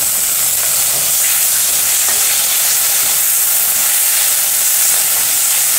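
Onions, garlic and ginger frying in hot oil in a stainless steel kadai, sizzling steadily, just after soy sauce and green chilli sauce have gone in, while a slotted spatula stirs them.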